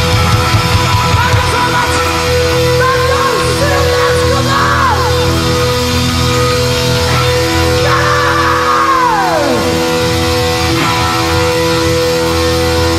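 Heavy metal band playing live: drums, bass and electric guitar over held chords. A guitar swoops down in pitch twice, about four seconds in and again about eight seconds in.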